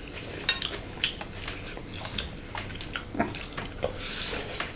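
Wet chewing and lip-smacking of people eating spicy pork salad with fresh greens by hand, with soft squelches as fingers work the dressed salad in the bowls. Many small irregular clicks and smacks, no voice.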